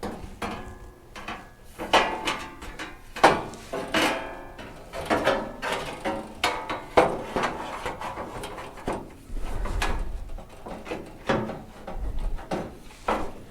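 Sheet-steel inner fender and core support panels knocking and clanking as they are handled and pushed into position, many separate hits with a short metallic ring, and a dull low bump about two-thirds of the way through.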